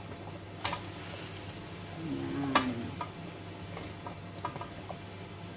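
Thin crepe frying in a nonstick pan on a gas burner, a faint steady sizzle, with a spatula scraping and clicking against the pan as the crepe is lifted out; the sharpest click comes about two and a half seconds in.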